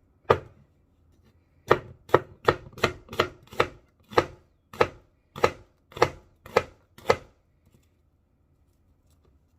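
Kitchen knife slicing an onion, striking the cutting board. There is one chop, then about a dozen quick strokes, about three a second at first and slowing to nearly two a second, stopping about seven seconds in.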